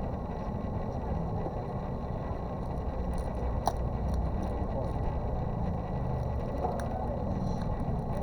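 Steady low background rumble, with a sharp small click about three and a half seconds in and another near seven seconds.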